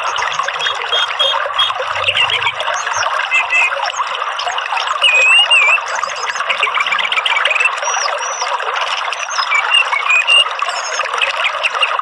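Orange-headed thrush calling in short whistles and chirps, some notes gliding up and down, over a steady rush of running water.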